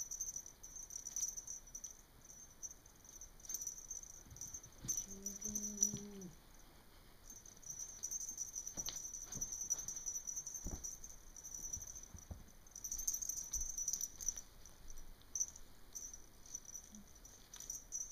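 Kittens playing with a feather wand toy on carpet: soft, scattered taps and rustles of paws and the feather toy, over a steady high-pitched whine. A brief low tone sounds about five seconds in.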